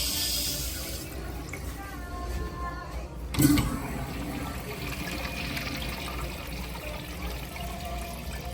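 Toto toilet flushing: the valve opens with a sudden loud whoosh about three seconds in, then water rushes steadily through the bowl.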